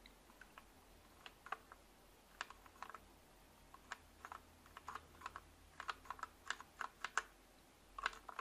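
Mechanical keyboard keys being typed, faint: a few scattered clicks at first, coming closer together from about halfway through.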